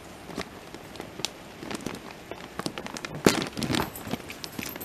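Plastic dog-treat pouch crinkling and crackling as it is handled, with irregular sharp clicks; the loudest crackle comes about three seconds in.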